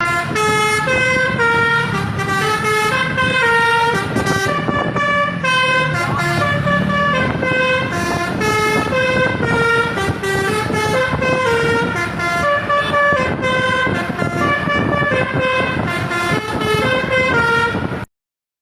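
Telolet horn, a bank of electrically switched air horns of the kind fitted to Indonesian buses, playing a fast tune of stepped notes over a low rumble. It cuts off abruptly near the end.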